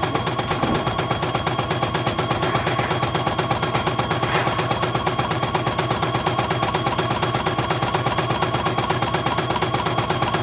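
CNY E900 portable computerized embroidery machine stitching a pattern: a rapid, even clatter of needle strokes.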